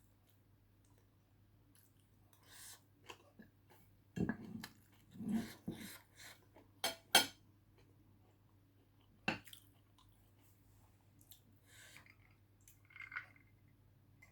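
A person eating: intermittent chewing and mouth sounds, with a few sharp clicks, two close together about seven seconds in and another about two seconds later.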